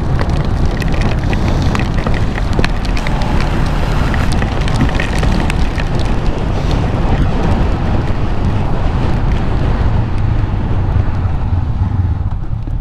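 Wind and heavy rain beating on a motorcycle helmet's microphone at riding speed, with raindrops ticking against it, over the low running hum of a Honda CBR500R's parallel-twin engine. Near the end the rain hiss thins and the engine hum comes forward.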